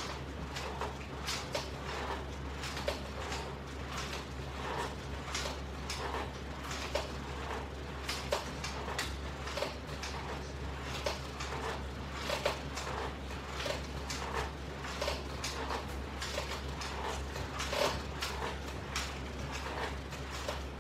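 Exercise equipment clicking and creaking in an irregular run of light clicks and knocks, a few a second, over a steady low electrical hum.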